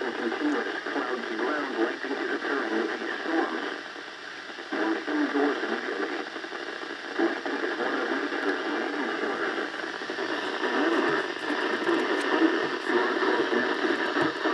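NOAA Weather Radio broadcast received with heavy static: a voice reading the severe thunderstorm warning over a constant hiss, with brief pauses between phrases.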